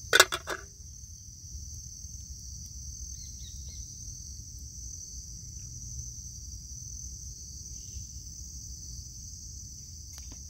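Steady high-pitched chorus of insects chirring in the woods, over a low rumble. Three or four sharp knocks come right at the start.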